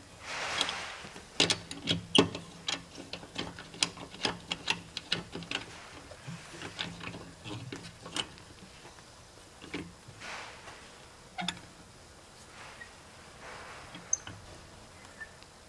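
A wrench tightening a wheel's lug nuts: irregular metallic clicks and taps, quick and close together for the first several seconds and sparser after. A few brief rushes of noise come in among them.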